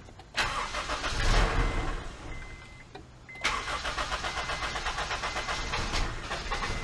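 Honda CR-V four-cylinder engine being cranked by the starter on its first start after a head gasket replacement, not yet running: one attempt of about two seconds, a short pause, then a longer, even cranking with a steady fast beat. Heard from inside the cab with the door open.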